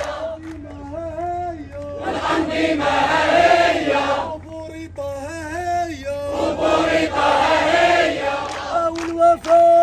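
Protest crowd chanting an Arabic slogan in call and response: a single voice chants a line, then the whole crowd answers in unison, twice over, and the lead voice starts a new line near the end.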